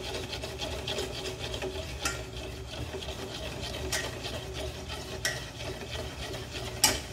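Stainless steel wire whisk stirring warm condensed milk in a stainless steel pot, a steady scraping and swishing. It is broken by a few sharp clinks of the whisk against the pot, the loudest near the end.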